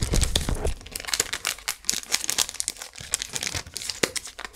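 Thin clear plastic wrap crinkling and crackling irregularly as a stack of board game cards is handled and slid back into it, with a dull handling knock at the start.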